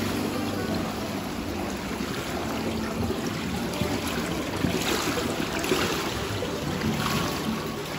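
Indoor pool water splashing and lapping as a swimmer moves her arms, with water trickling into the edge overflow grate over a steady low hum. Brighter splashes come about five seconds in and again near seven seconds.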